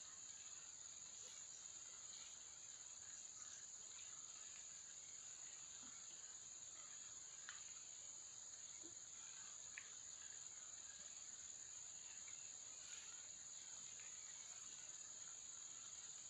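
Near silence with a faint, steady high-pitched insect chirring, like crickets, and a few faint ticks.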